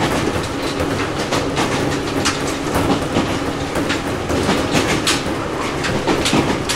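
Ohmi Railway 800 series electric motor car (MoHa 1809, rebuilt from a Seibu 401 series) running at speed, heard from inside the saloon. There is a steady running hum with several held low tones, and the wheels click and knock over rail joints every second or so.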